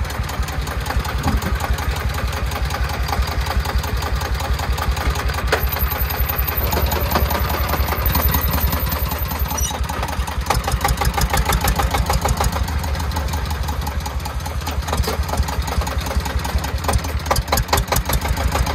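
Single-cylinder diesel engine of a công nông three-wheeled farm truck chugging with a rapid, even beat. It is working under load, hauling a bed heaped with soil over mud.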